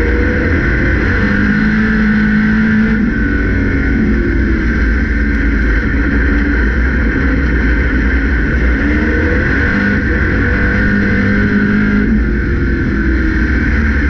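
Stock car engine heard from inside the cockpit, running loud and steady, its pitch rising and falling in several waves as the throttle comes on and off, over a steady high whine.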